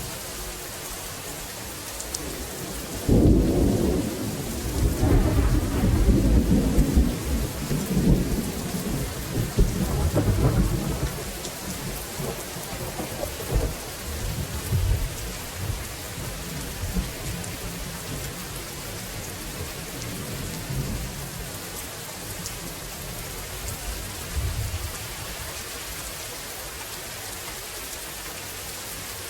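Steady rain falling, with a roll of thunder that breaks in suddenly about three seconds in, rumbles for several seconds and dies away in smaller swells, and a last faint rumble near the end.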